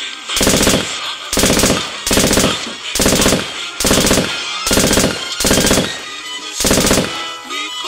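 Eight short bursts of machine-gun fire, evenly spaced a little under a second apart, each starting and stopping sharply: a gunfire sound effect laid over a toy blaster.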